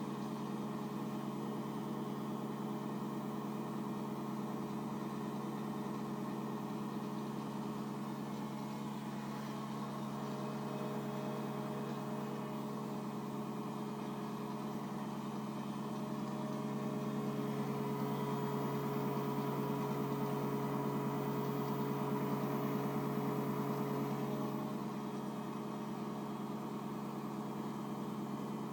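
Daewoo DWDM301WP washing machine in its final spin at 700 rpm: a steady hum from the motor and spinning drum. It grows a little louder for several seconds past the middle, with a faint higher whine added.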